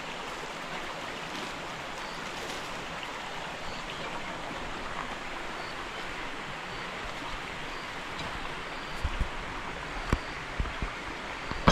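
Steady rush of flowing stream water, with a few short low thumps near the end.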